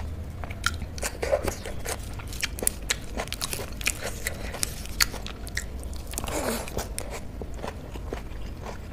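Close-up eating sounds: a mouthful of soy paneer bhurji and rice being chewed, with scattered small mouth clicks, while fingers squish and mix the soft food on the plate.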